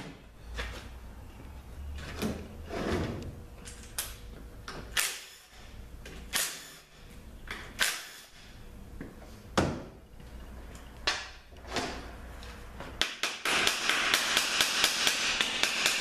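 Scattered metallic knocks and clinks of tools being picked up and set against the transaxle's metal case. About three seconds before the end comes a dense run of rapid clicking in quick back-and-forth strokes: a hand ratchet loosening the bolts of the AX4N's overdrive servo cover.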